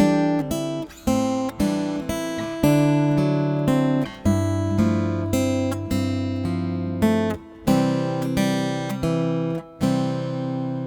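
Solo acoustic guitar playing a slow, lyrical melody in plucked notes and chords. A last chord is struck almost ten seconds in and left ringing, slowly fading.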